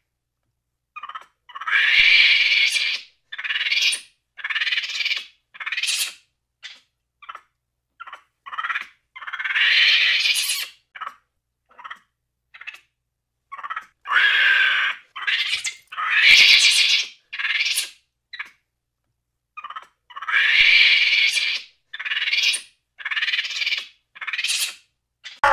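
Monkeys calling: a series of high-pitched calls, some short and some lasting about a second, with brief silences between them.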